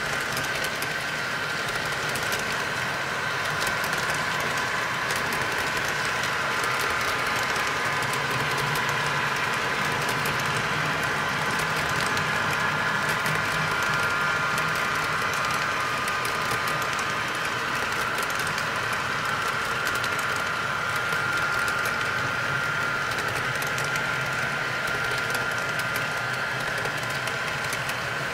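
Model freight train cars (double-stack container well cars, then trailer-carrying flat cars) rolling past on track. A steady rolling hum with a high whine and fine, rapid ticking of wheels over the rails.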